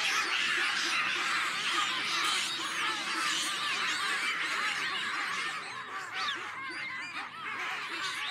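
A troop of baboons calling all at once: many overlapping short, high screams and barks, with no break.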